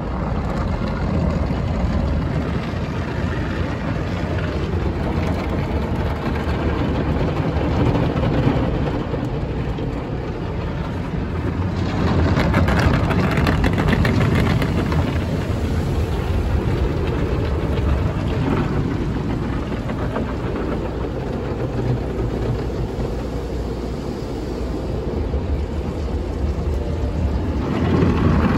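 MacNeil tunnel car wash heard from inside the car's cabin: wash equipment and water working over the body and glass as a steady rushing noise. It swells about halfway through and again near the end, where water sprays onto the windows.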